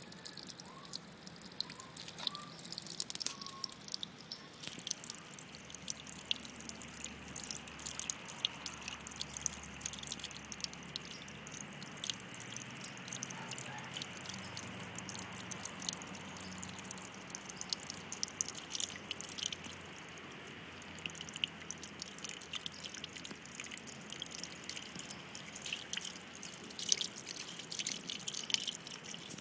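Water dripping and trickling, with many small irregular splashes.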